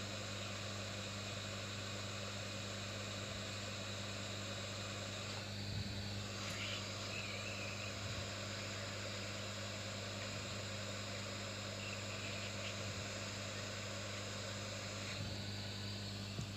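A steady low electrical hum over a constant hiss, with a few faint brief sounds partway through.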